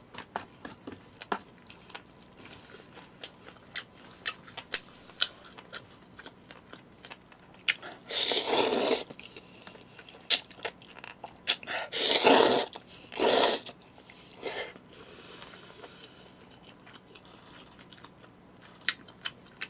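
A person eating jajangmyeon (black bean noodles): scattered wet chewing clicks and mouth smacks, with three loud noodle slurps, one about eight seconds in and two close together a few seconds later.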